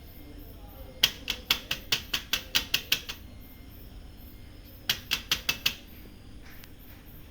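Rapid mechanical clicking from a part of a Toshiba e-STUDIO 2523AD photocopier's drum area as it is turned by hand, about five clicks a second. It comes in two runs, the second shorter, near five seconds in. The part now turns freely after caked dirt, the cause of the machine's noise and jamming, was cleaned out.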